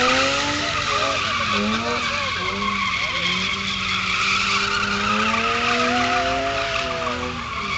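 BMW M3's straight-six engine revving up and down again and again while the car drifts, its rear tyres screeching steadily as they spin and slide.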